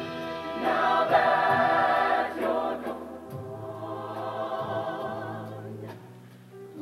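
High school show choir singing held chords: a loud swell about half a second in that eases off after about two seconds, then a softer sustained passage that fades near the end.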